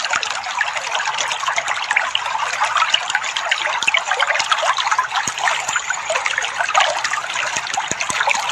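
Water trickling and splashing steadily, a continuous babble of many small drips and splashes.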